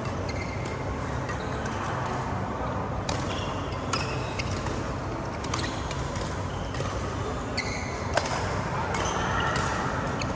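Badminton rackets striking the shuttlecock in a rally: sharp pops, one about every second, over steady background noise.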